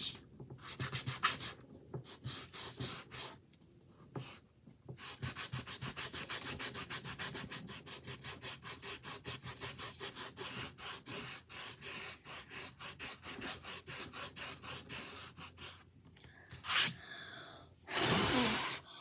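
Rubber eraser scrubbed rapidly back and forth over pencil lines on a canvas, at about five strokes a second. Near the end come two louder rustling thumps.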